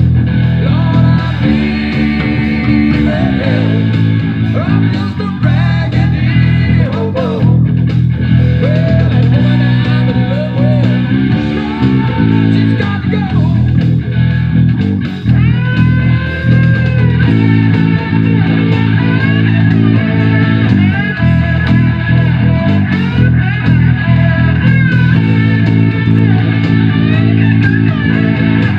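Rock music with electric guitar and a steady beat, with a four-string electric bass played along fingerstyle, its low notes moving in steps under the band.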